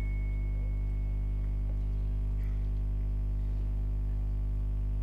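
Steady electrical hum from a public-address system: mains hum with its evenly spaced overtones, unchanging, with a faint high ringing tone that dies away in the first second or so.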